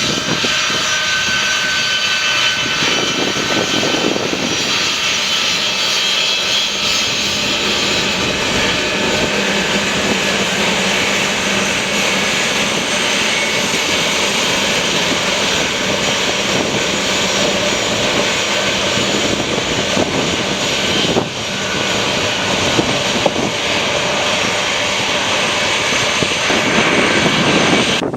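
Boeing 757-200 jet engines running loud and steady: a broad rushing noise with a high whine over it, dipping briefly about three-quarters of the way through.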